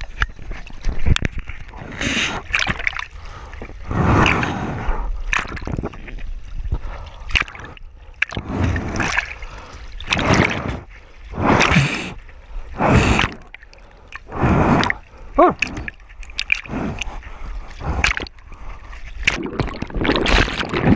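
Sea water splashing and gurgling against a camera held half in the water at the surface, with small waves washing over it in irregular bursts every second or two.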